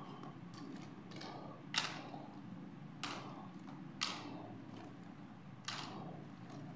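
Small plastic toy doll accessories being taken from a box and set down one after another: light plastic clacks and taps, four sharper ones about a second apart with fainter ticks between.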